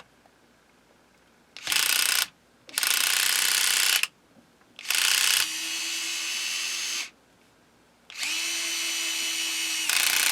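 Cordless electric screwdriver motor running in four separate bursts of one to two seconds each, stopping in between. The last two bursts settle into a steadier, lower hum.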